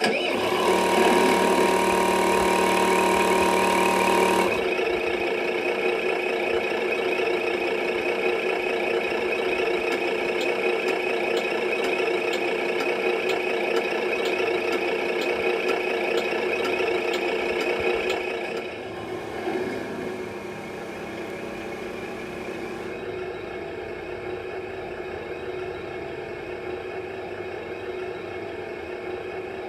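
Simulated truck engine from an RC truck's GT Power sound module, played through its small speaker. A start-up sequence of about four seconds is followed by a steady idle. About 18 seconds in the sound drops in level and changes character.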